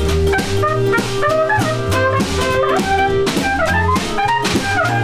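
Live band playing a jazzy instrumental break: trumpet and clarinet melody lines over a drum kit and a low bass line.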